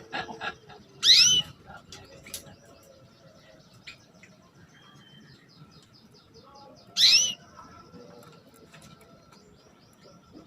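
Female domestic canary calling, two loud short chirps about six seconds apart, over a faint rapid high ticking. This is the female's 'cuit-cuit' call, the kind used to stir male canaries into singing.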